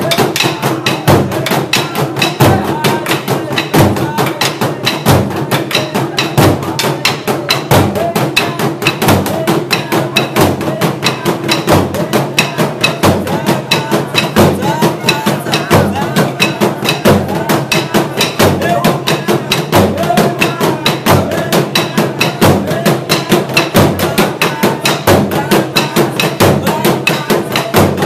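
Burundian drum ensemble: several tall wooden drums beaten with sticks in a fast, dense rhythm, with sharp stick clacks over a deep beat that recurs about every second and a quarter.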